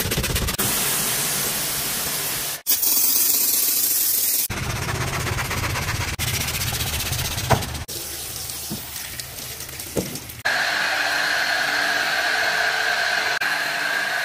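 Hissing spray of a car-wash pressure washer laying foam on a car's bodywork, in several short cuts that start and stop abruptly. From about ten seconds in, a steady whine runs under the hiss.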